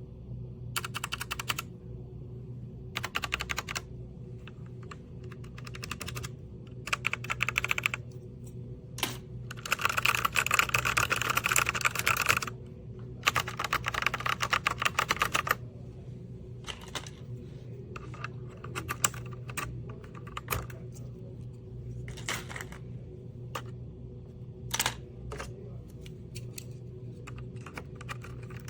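Typing on a mechanical keyboard: bursts of rapid key clicks, with two long fast runs in the middle and scattered single keystrokes elsewhere, over a steady low hum.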